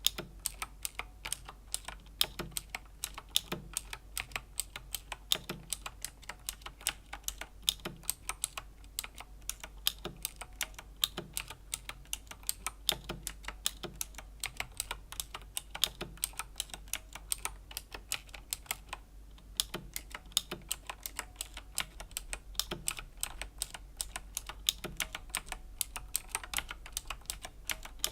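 Steady, unhurried typing on a Razer BlackWidow Chroma V2 mechanical keyboard with Razer Green clicky switches: a string of sharp key clicks, a few a second, with a short pause about two-thirds of the way in.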